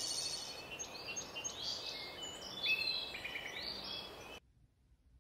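Forest ambience: many birds chirping and calling at once over a steady background hiss, cutting off suddenly about four seconds in.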